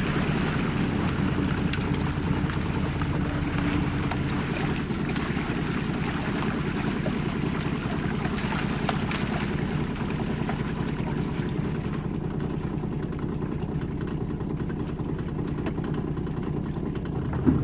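Outboard motor running at a steady idle hum while a netful of Arctic cod thrashes and splashes at the water's surface. The splashing fades about twelve seconds in, leaving mainly the engine hum.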